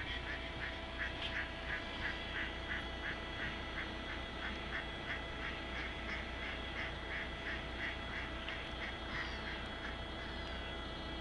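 Mallard ducks quacking in a steady run of short calls, about three a second, growing fainter and dying away near the end.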